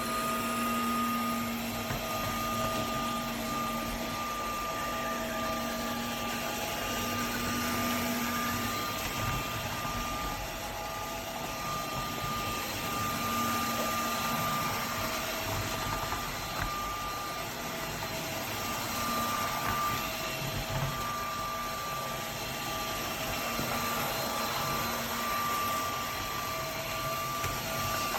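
Dreame H12S cordless wet-dry vacuum mop running steadily in turbo mode: a constant motor whine over the hiss of suction.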